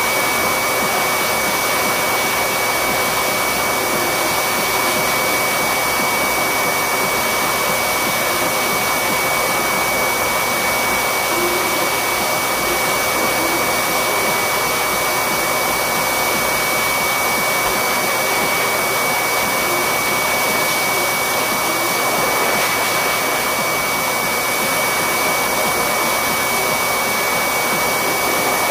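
Corded electric dog-grooming clippers running steadily, a continuous motor whir with a steady high whine, while trimming a Yorkie's coat.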